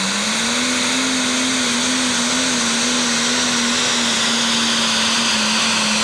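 Turbocharged diesel engine of an International Harvester Pro Stock pulling tractor running at full throttle under heavy load as it pulls the sled. The engine note climbs just after the start, then holds high and steady with a slight waver.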